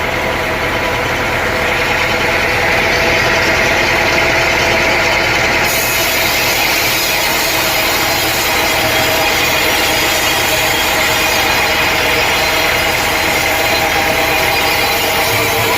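Sawmill saw cutting through a teak log over a steady machine drone; the sound turns brighter and hissier about five and a half seconds in.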